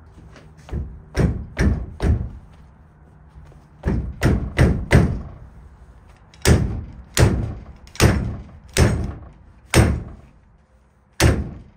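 Hammer striking a scrap-iron rod welded onto a flat metal piece clamped in a bench vise: about fifteen sharp blows in three runs, four, then five quick ones, then six spaced out. It is a strength test of the weld, which holds.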